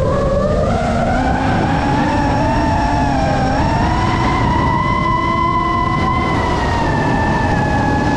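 FPV quadcopter's motors whining as it flies, a layered pitch that climbs slowly over the first few seconds, holds, then eases down a little near the end as the throttle changes, over a low rushing noise.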